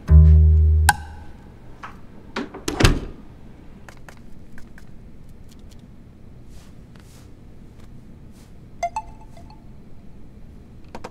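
A low plucked double-bass note in the soundtrack music in the first second, then a thud about three seconds in and scattered light clicks, with a short chime-like ring about nine seconds in.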